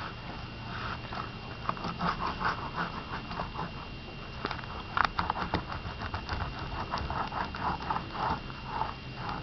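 Steel-wheeled spline roller worked back and forth in short choppy strokes, pressing plastic film into the channel of a metal screen frame: a quick, uneven series of short scraping strokes, with a few sharp clicks around the middle.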